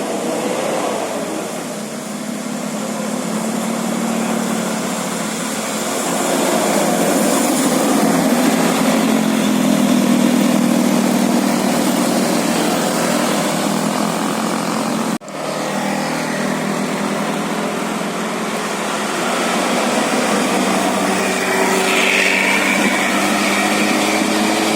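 Road traffic: vehicle engines running amid a steady rushing noise, broken once by a sudden cut about fifteen seconds in.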